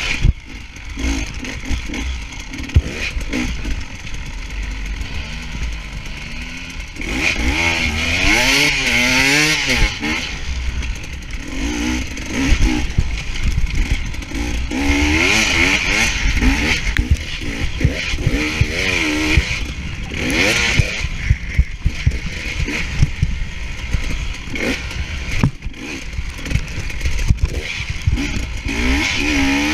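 Enduro motorcycle engine heard close up from on the bike, revving up and down again and again as the rider opens and closes the throttle through a sandy track. Short knocks and clatter from the bike running over bumps come through between the revs.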